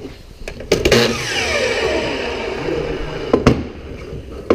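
Hitachi miter saw switched on briefly, then its blade coasting down with a falling whine. Two sharp knocks near the end.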